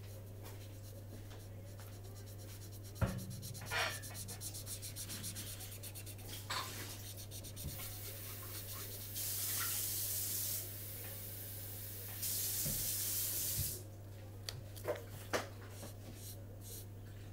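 Colouring pen scratching across paper as an area is filled in, with a nylon jacket sleeve rubbing on the page. There are two longer bouts of steady scratching about halfway through, a few light knocks, and a steady low hum underneath.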